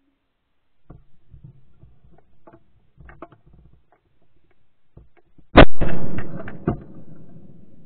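Dry twigs and brush crackling as someone pushes through scrub, then a loud shotgun shot fired at a flushed woodcock, ringing off into a long echo, with a second sharp report about a second later.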